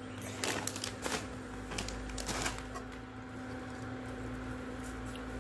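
Plastic snack packet crinkling and rattling as aloo bhujia is shaken out of it into a pan, a cluster of crackles in the first half, then quieter scraping of a steel spoon stirring the pan, over a steady low hum.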